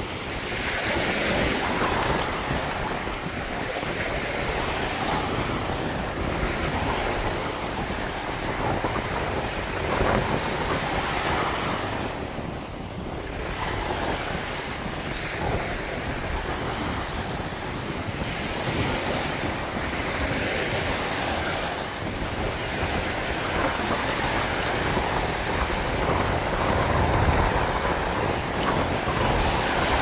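Ocean surf: small waves breaking and washing up a sandy beach in a steady, gently swelling rush, with wind buffeting the microphone.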